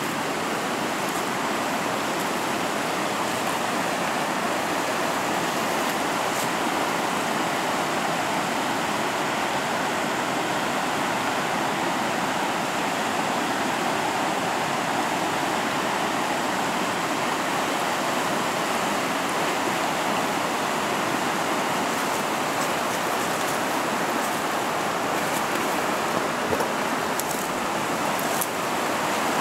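Whitewater rapids of the Little River rushing over rocks in a steady, unbroken stream of water noise.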